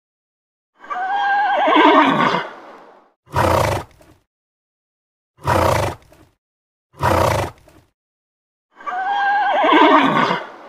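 A horse whinnying: two long whinnies, one about a second in and one near the end, with three short, harsh noisy blasts between them.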